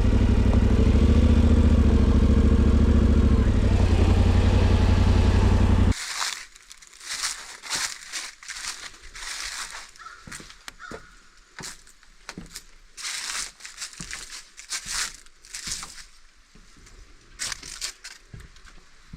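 Yamaha Tenere 700's parallel-twin engine running steadily, cut off abruptly about six seconds in. After that come irregular short crunching noises.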